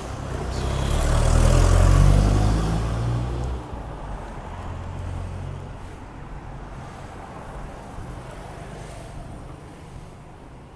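A motor vehicle's engine rumbling, swelling to its loudest about two seconds in and dropping off abruptly, then a quieter steady engine rumble continuing.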